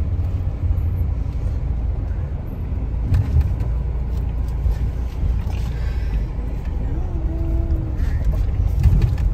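Car driving, with its engine and tyre noise a low, steady rumble heard from inside the cabin.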